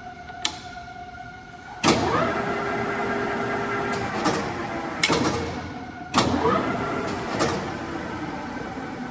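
Standard Modern engine lathe's headstock gearing running, with loud clunks about two, five and six seconds in as the spindle is started and switched into reverse, each followed by the gear train's whine swelling as the spindle comes up to speed.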